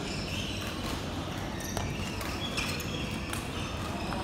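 Light, sharp ball bounces, a few of them around two to three seconds in, over the steady background noise of a large sports hall.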